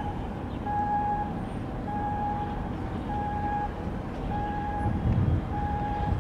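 An electronic warning beeper sounding a steady single-pitched beep about half a second long, repeating about once every second and a bit, five times, over a low rumble.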